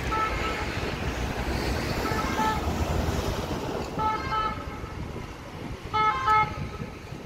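French two-tone emergency siren sounding in short two-note bursts about every two seconds, growing louder near the end as it approaches, over steady city traffic noise.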